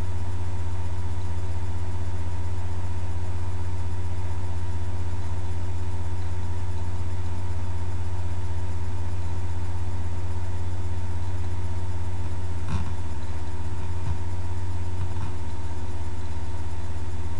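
Steady low hum, unchanging throughout, with a few faint steady tones above it and a couple of faint clicks about thirteen and fourteen seconds in.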